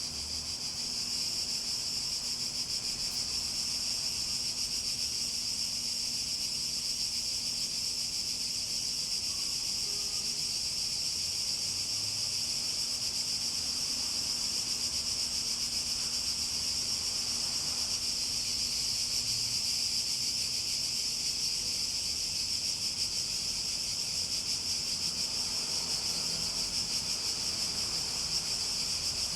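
Cicadas droning in chorus: a steady, continuous high-pitched buzz that neither pauses nor changes.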